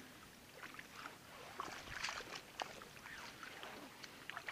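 Water splashing and dripping as a beach seine is hauled in by hand through shallow river water: faint and irregular small splashes, the loudest cluster about two seconds in.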